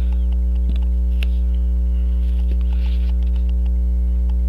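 Loud, steady electrical mains hum on the recording, with a few faint light clicks of small tools and screws as the case screws are taken out of a pocket watch.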